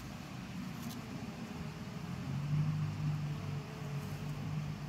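A low, steady engine hum over background hiss, growing louder about two seconds in.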